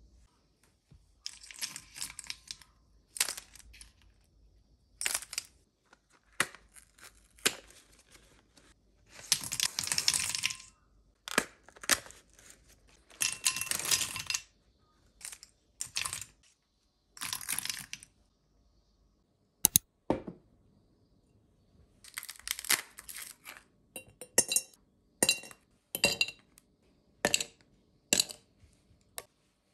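Aluminium Nespresso coffee capsules clattering and clinking into a glass bowl in a series of short pours, with quiet gaps between them. Near the end, ice cubes clink into a glass mug.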